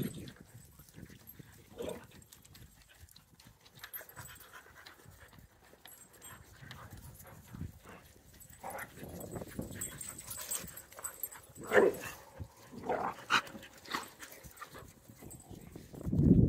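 Several dogs milling together, with a few short dog yelps and whines scattered through the second half.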